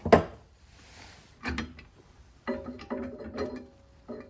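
Ratchet wrench clicking in short runs while a bolt is worked, after a sharp metal knock at the start.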